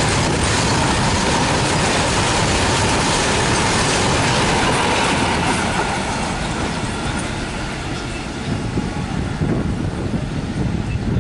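Indian Railways freight train's BCNA covered wagons rolling past at speed, a loud steady rumble and clatter of steel wheels on the rails, with a faint steady whine in the first half. The noise eases off from about halfway through as the train goes by.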